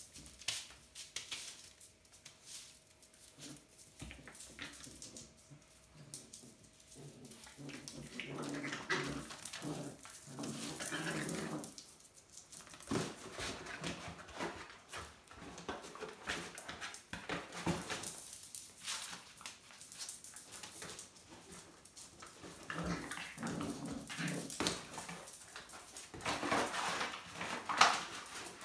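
Puppies whimpering and making small play noises as they wrestle, with many short clicks and knocks from paws and claws on a cork floor and from a cardboard box being pushed about; the sharpest knock comes near the end.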